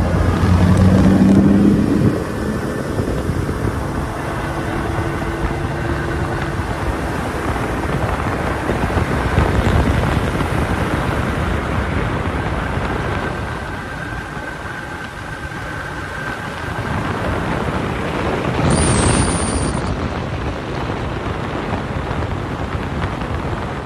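Outboard motor running at speed on a planing boat, with rushing water from the wake and wind on the microphone. A steady engine whine runs through the noise, which eases a little for a few seconds past the middle.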